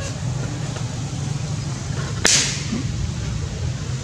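A rubber balloon bursting with a single sharp pop about two seconds in, as a monkey holding it pops it, over a steady low rumble.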